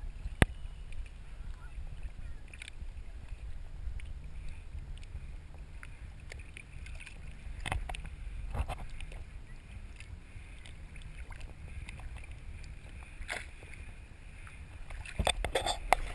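Small waves lapping against a moored boat's hull, under a steady muffled low rumble. Scattered sharp knocks, several in quick succession near the end.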